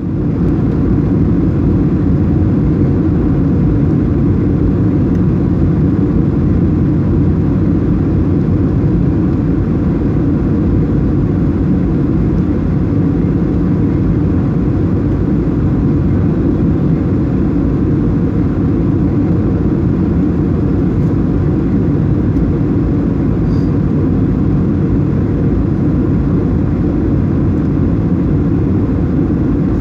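Steady cabin noise of a Boeing 737-800 in flight on approach: engine and airflow rumble heard from inside the cabin at a window seat, deep and unchanging.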